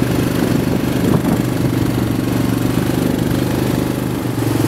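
ATV (quad bike) engines running at a steady pitch with no revving, a continuous mid-pitched drone.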